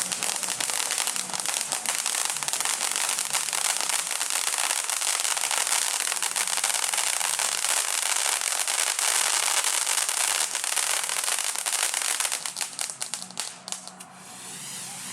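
Fireworks salute: a loud, dense crackle of many small rapid bursts that dies away about a second before the end.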